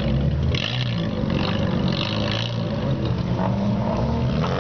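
Loud aftermarket exhaust of an old Japanese sedan creeping along at low revs, its engine note rising and falling a few times with light throttle.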